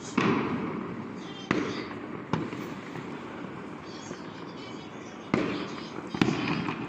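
New Year fireworks exploding: five sharp bangs, each trailing off over a second or so, with crackling between them over a steady din of more distant bursts.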